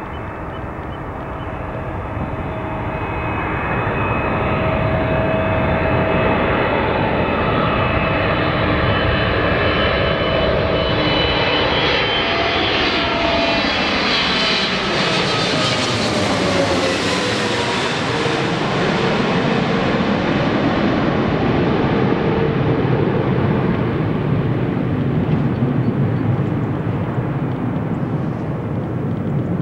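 Boeing 777F freighter's GE90 turbofan engines on final approach, growing louder as the jet comes in low, with a whine that drops in pitch as it passes overhead about halfway through, then a steady rumble as it moves away.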